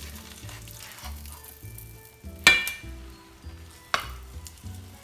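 Pancake batter sizzling in hot butter in a cast iron skillet, with a metal spatula sliding under the pancakes and striking the pan in a sharp, ringing clink about halfway through and a smaller one near the end. Soft background music underneath.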